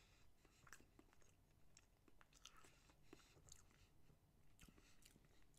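Faint chewing of a soft chestnut-cream pastry cake, with scattered small mouth clicks at an irregular pace.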